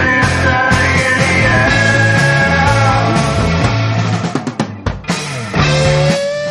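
Rock music soundtrack. It breaks up briefly between about four and five and a half seconds in, then picks up again.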